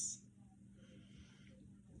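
The hissing end of a muttered word, then quiet room tone with a faint steady hum.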